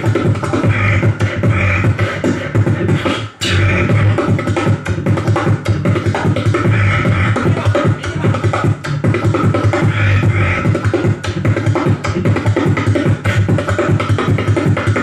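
Human beatboxing into a handheld microphone through a club PA: a dense, fast stream of vocal kick, snare and hi-hat sounds over a steady deep bass. It breaks off for an instant about three and a half seconds in, then carries on.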